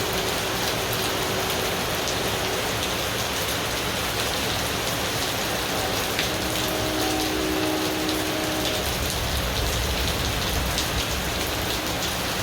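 Rain falling steadily, with a low rumble of distant thunder about nine seconds in.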